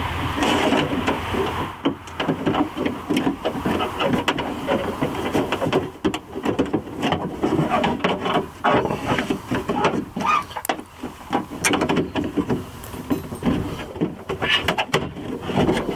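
Irregular clicks, knocks and rattles of hand work inside a car door as the door latch assembly is loosened and worked out of the door.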